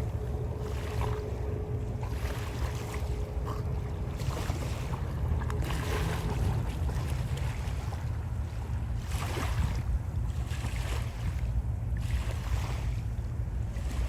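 A small watercraft's engine running on open water, a steady low rumble, with wind buffeting the microphone and water splashing and rushing in irregular swells.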